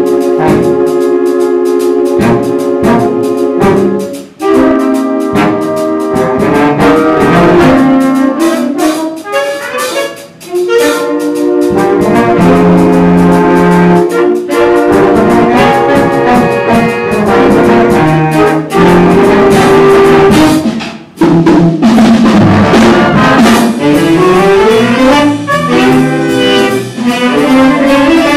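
Instrumental jazz passage led by a brass section of trumpets and trombones playing in harmony. It opens with short detached chords, then moves into longer held chords and running lines, with brief breaks between phrases.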